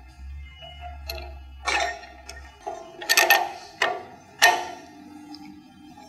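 Metal clinks and sharp knocks from a conveyor trolley being fitted by hand into its overhead track. The loudest knocks come a little under two seconds in, twice close together around three seconds, and again near four and a half seconds.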